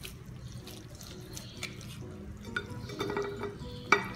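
Dressed pieces of boiled potato, carrot and green bean being tipped from a bowl onto a plate: soft wet sliding with a few light knocks and clatters in the second half, the sharpest just before the end.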